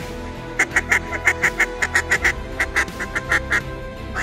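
Fast runs of short, sharp mallard-style quacks, about seven or eight a second, in two bursts with a short break between them. Music plays underneath.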